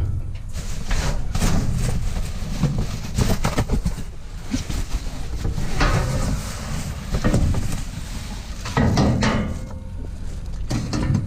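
Irregular knocks and clatters of small scrap metal parts and hardware being picked through and handled, over a low rumble.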